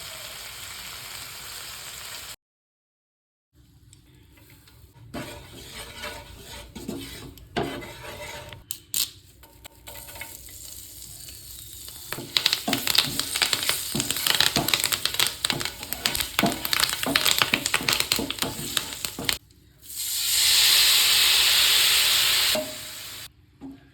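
Fish frying in hot oil: rapid crackling and spitting for several seconds, then, about twenty seconds in, a loud steady sizzle for a couple of seconds. The sounds come in short clips with abrupt cuts between them.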